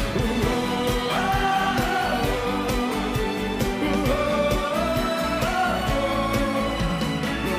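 Live pop-sertanejo band music with a male lead vocal singing held, sliding notes over a steady beat.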